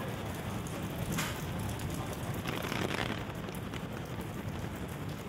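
Steady rain falling on a wet street, heard as an even hiss, with louder patches of hiss about a second in and again around two and a half to three seconds.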